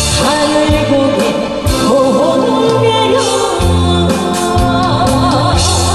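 A singer performing a trot song live over a recorded backing track, the voice wavering with vibrato above a steady bass line and drum beat.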